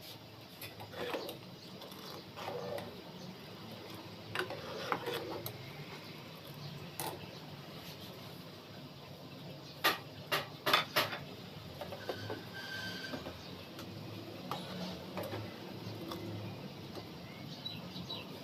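Steel ladle clinking and knocking against an aluminium saucepan as milk and vermicelli are stirred, with a quick run of four sharp knocks about ten seconds in, over a low steady hum.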